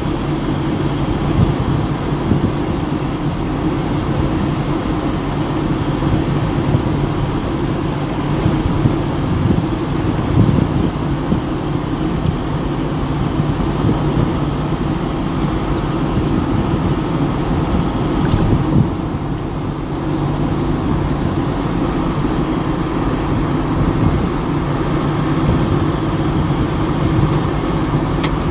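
Steady engine hum and tyre noise of a vehicle driving at cruising speed on a paved road.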